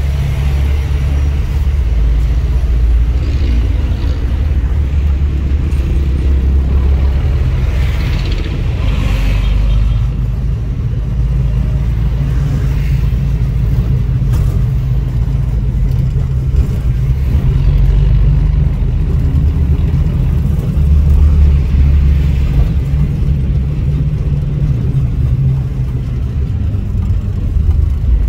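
A jeepney's diesel engine and road noise, heard from inside the packed passenger cabin as a loud, steady low rumble while it drives.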